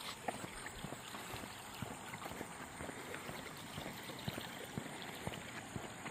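Stormwater runoff flowing down a shallow grassy roadside ditch: a steady rush of water with many small splashes and gurgles.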